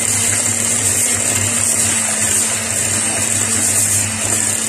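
Electric hand mixer running steadily at speed, its beaters churning through boiled potato chunks with butter and cheese to mash them.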